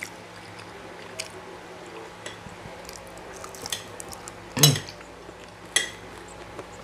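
Metal fork and spoon clinking and scraping against ceramic plates while eating: about five separate sharp clinks over a low background, the loudest about two-thirds of the way in.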